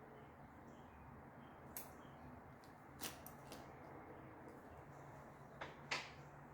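Near silence: faint room hiss broken by a few light, short clicks, the last and sharpest near the end.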